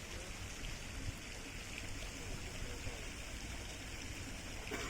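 Steady rush of running water, a stream-like trickle.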